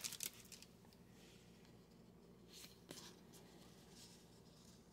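Near silence with faint rustling of trading cards being handled, and a soft click about three seconds in.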